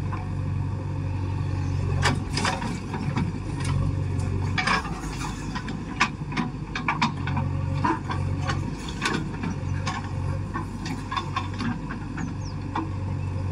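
JCB backhoe loader's diesel engine running steadily as the backhoe swings and digs, with many sharp knocks and clatters of the bucket on stony soil.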